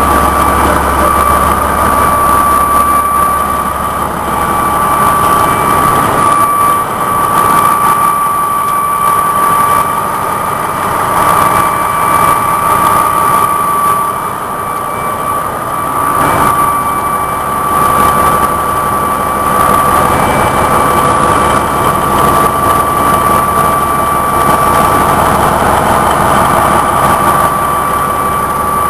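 Morbark 1200 tub grinder running: a loud, steady machine drone with a constant high whine through it.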